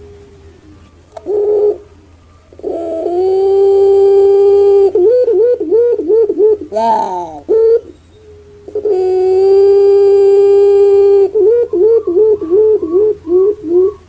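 Puter pelung (Barbary dove, Streptopelia risoria) cooing twice. Each call is a long, steady held coo of two seconds or more that breaks into a quick run of wavering, rolling notes. A shorter coo comes before each call.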